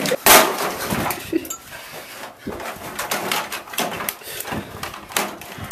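Irregular clattering, knocking and scraping of a wrecked microwave oven's metal and plastic parts being handled and pulled apart.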